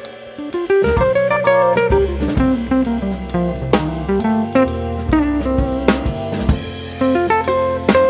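Background music: a plucked guitar-like melody that climbs and falls in steps over a steady drum-kit beat with cymbals.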